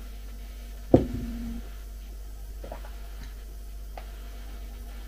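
A ceramic mug set down on the table with a single dull knock about a second in, followed by a few faint small clicks over a low steady room hum.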